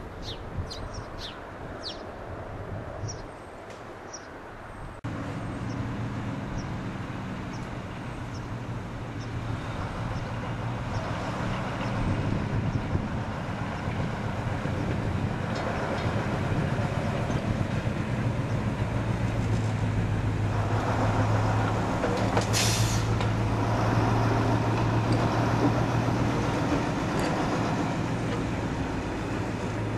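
Small diesel shunting locomotive's engine running as it moves slowly past, growing steadily louder to a peak and easing a little near the end. A short high hiss of air sounds about three-quarters of the way in, and birds chirp in the first few seconds.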